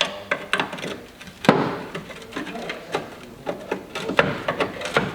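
Irregular metal clunks and knocks as a rusted lower suspension arm is worked loose on the car, the loudest about a second and a half in.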